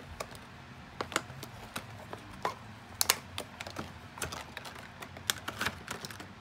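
Clear plastic toy packaging crinkling and clicking as it is handled, a run of irregular sharp clicks and crackles that grows busier after about three seconds.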